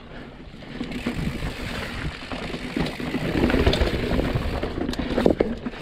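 Specialized Status mountain bike ridden over slab rock: a steady rumble of tyres and rattling of the bike, with a few sharp knocks.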